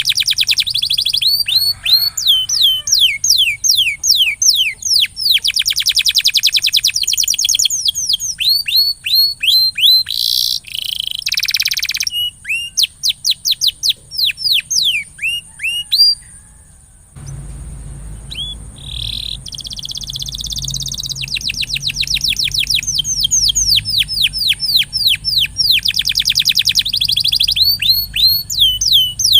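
Domestic canary singing: fast trills of rapid, repeated sweeping notes, broken by short pauses.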